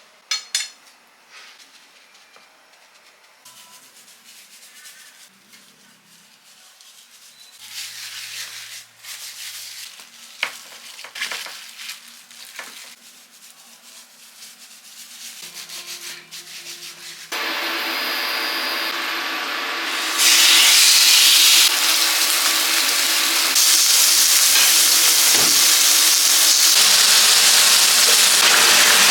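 Quiet handling and rubbing with scattered clicks, then, about two-thirds of the way through, a loud steady sizzle that gets louder a few seconds later: a rib eye steak searing in a hot pan.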